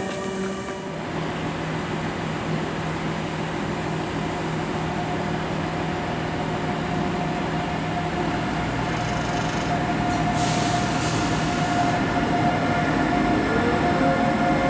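DB class 245 diesel-electric locomotive running as it shunts slowly towards the camera, its engine sound steady and growing louder as it comes closer. A brief hiss comes about ten seconds in, and a tone rises in pitch near the end.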